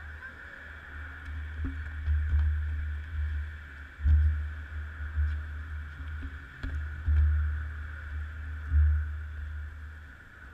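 Wind buffeting an action camera's microphone: an uneven low rumble that swells in gusts, over a steady high hum, with a few faint knocks.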